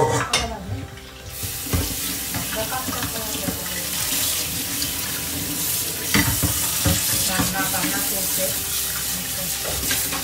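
Kitchen tap running full into a sink: turned on about a second in and shut off abruptly near the end, with a few knocks of things handled in the sink.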